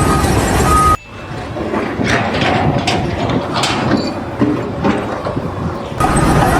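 Heavy vehicle or machine running with a reversing alarm beeping at an even pace. It cuts off suddenly about a second in to a quieter stretch with a few scattered knocks, then cuts back to the machine and beeping near the end.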